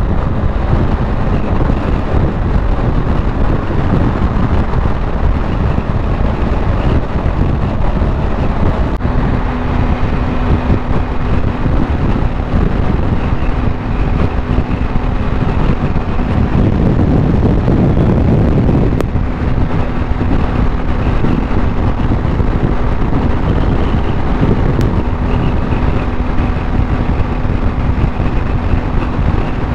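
Wind rushing over the microphone of a BMW R1250GSA motorcycle at highway speed, with the bike's boxer-twin engine running steadily underneath. The low rumble swells for a couple of seconds past the middle.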